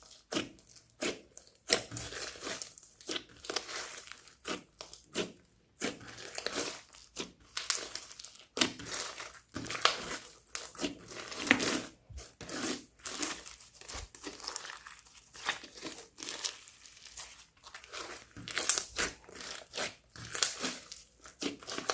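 Slime being squished and mixed by hand: a dense, irregular run of sticky pops and clicks.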